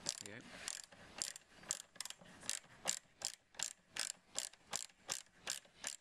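Hand socket ratchet clicking in an even rhythm, about three clicks a second, as it is swung back and forth to turn a door-hinge bolt.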